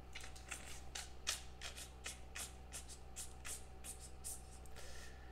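Faint, irregular clicks and taps of fingers handling a rigid clear plastic trading-card case.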